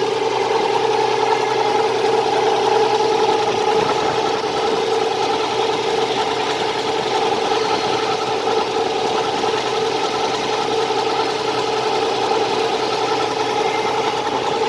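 2002 Nissan Xterra's 3.3 L V6 engine idling steadily, with a fine rapid ticking or knocking on top and a steady mid-pitched whine: the mystery noise the owner has not diagnosed.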